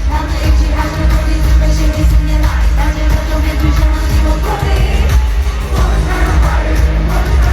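Live pop concert music heard from the arena floor: a female singer over a full band with heavy bass, loud and continuous, echoing in the arena.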